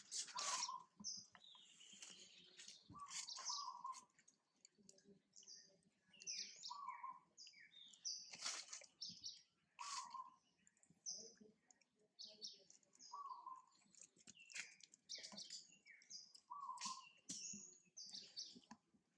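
Birds chirping: a short, fairly low call repeats about every three seconds among many quick, high chirps.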